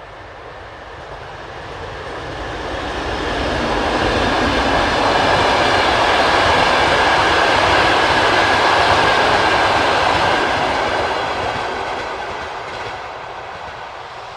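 Train passing by close: the rumble and clatter of its wheels on the rails grows louder over about four seconds, holds for several seconds, then fades away. A faint high steady whine runs through the loudest part.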